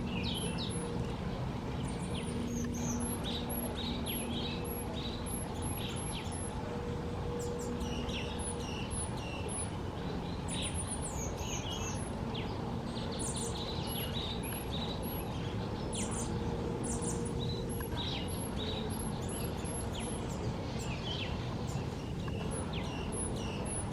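Southern black flycatchers calling with short, high, thin whistles, repeated over and over, with some lower chirping notes among them. A steady low rumble and faint hum run underneath.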